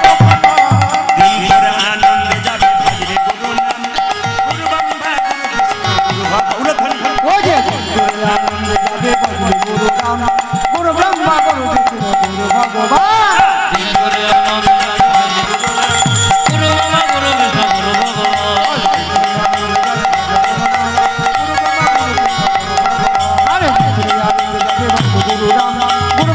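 Kirtan instrumental passage: a hand drum of the khol or tabla kind plays continuous strokes, its bass notes sliding in pitch, over a steady held note.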